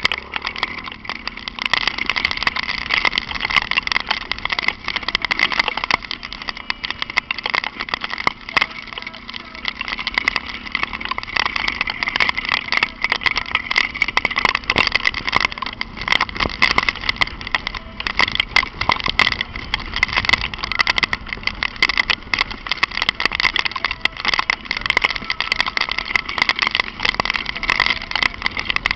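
Honda Falcon 400 single-cylinder motorcycle engine running steadily while riding in light rain, under a dense hiss and a constant crackle of quick ticks.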